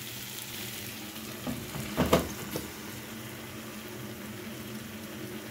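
Tomatoes, carrots and beef sizzling steadily in a frying pan. There are a few short knocks, the loudest about two seconds in, as the spatula works and a glass lid is set on the pan.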